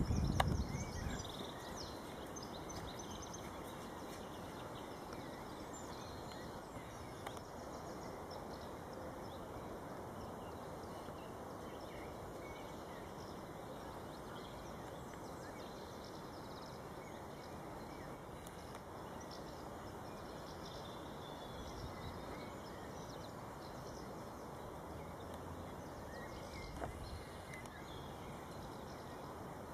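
Steady, faint outdoor background noise, with a few faint bird calls now and then.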